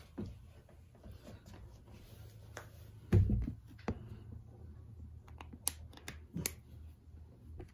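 Handling clicks and taps of a plastic shipping cup and long tongs as the cup's lid is worked loose, with a louder dull thump about three seconds in and a quick run of clicks later on.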